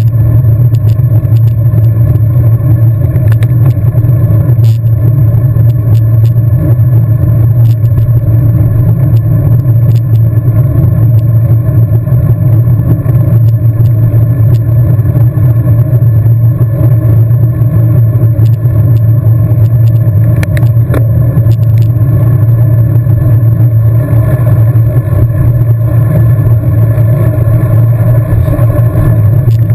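Loud, steady wind buffeting and road rumble while riding a road bicycle at speed, a deep continuous hum with faint scattered ticks and rattles.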